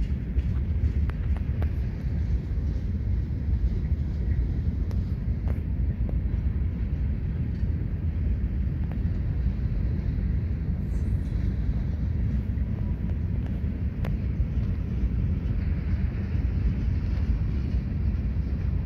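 Kansas City Southern diesel locomotive rumbling steadily as it approaches slowly along a yard track, a low engine rumble with a few faint clicks.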